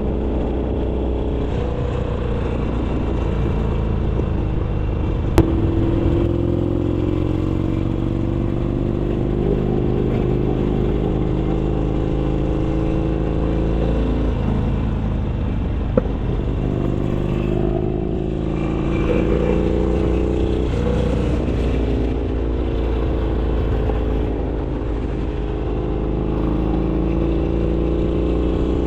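Harley-Davidson Iron 883's air-cooled V-twin running through an aftermarket RSD 2-into-1 exhaust while riding. The engine pitch rises and falls repeatedly as the bike accelerates and eases off. Two sharp clicks come about five seconds in and again near the middle.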